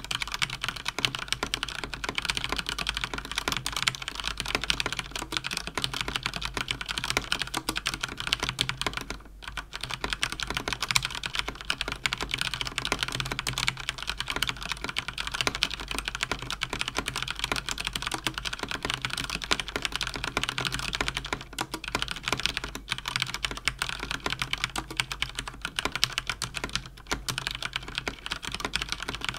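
Fast continuous typing on a mechanical keyboard with Cherry MX Speed linear switches (Cougar Attack X3 RGB): a dense, rapid stream of key clicks and bottoming-out clacks, pausing briefly about nine seconds in and for short moments later on.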